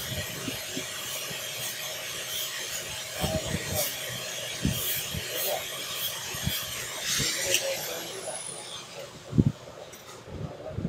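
Light rubbing and scraping with scattered small clicks and knocks over a steady hiss, and one louder knock near the end: a phone motherboard being handled and fitted into a PCB holder.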